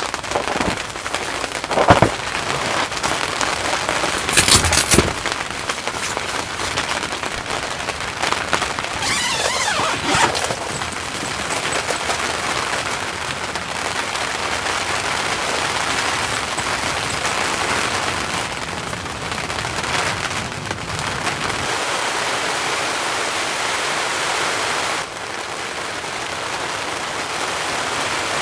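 Steady rain falling, with a few sharp knocks in the first five seconds.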